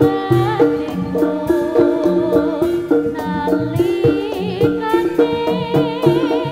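Javanese jaranan music: gamelan-style pitched percussion playing a repeating pattern over hand-drum strokes, with a wavering sung melody on top.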